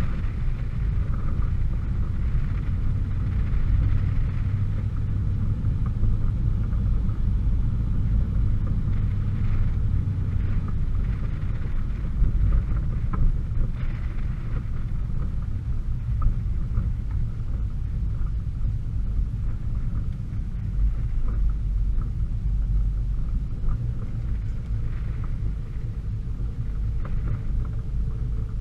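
A car driving along a road: a steady low rumble of engine, tyres and wind buffeting a camera mounted on the car's outside, with a few light knocks about halfway through.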